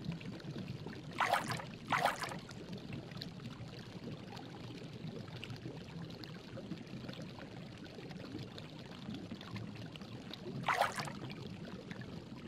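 Stream water running over rocks, a steady rush. Three brief louder bursts stand out: two close together a second or two in, and one near the end.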